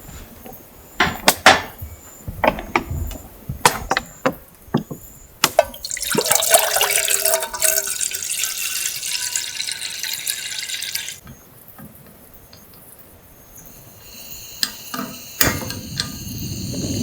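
Several sharp knocks and clinks, then water pouring or running for about five seconds, cutting off suddenly.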